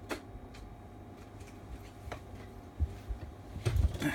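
A few faint clicks over a steady low hum, then a cluster of low thumps near the end: a door being pulled shut against noise from outside.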